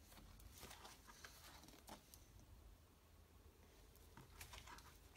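Near silence with a few faint rustles and light taps of stiff card print mounts being handled, one slid off the stack onto the next.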